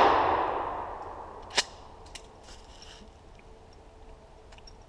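Echo of a 12-gauge shotgun blast fading away over about a second and a half. About a second and a half in there is a single sharp clack, then a few faint clicks as the gun is handled.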